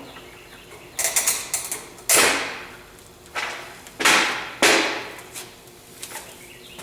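Hand hose cutter cutting through PTFE-lined braided stainless steel 6AN fuel hose in a series of about five short, sudden, loud cuts spread over a few seconds.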